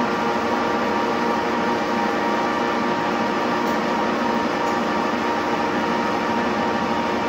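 Metal lathe running with a steady, even machine hum and gear whine.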